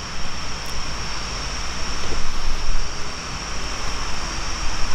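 Gusty wind buffeting the microphone as an uneven low rumble that swells a couple of seconds in, with a steady high chirring of night insects.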